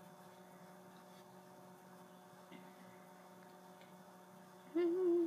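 Low steady electrical hum in a quiet room; about a second before the end, a young woman's voice begins a short held hummed note.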